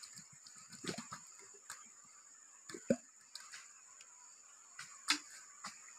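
A hollow bamboo tube being handled, giving a few irregular knocks and taps, the loudest about three seconds in and again about five seconds in. Under them runs a steady high-pitched insect drone.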